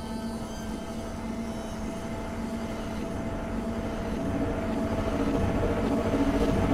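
A low, steady drone with a few held tones over a rumbling bed, slowly growing louder.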